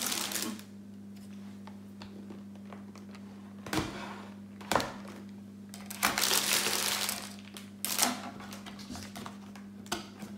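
A cardboard box and plastic bags of LEGO pieces being handled on a stone countertop: crinkling rustles at the start and again past the middle, with a few sharp knocks about four, five and eight seconds in. A steady low hum sits underneath.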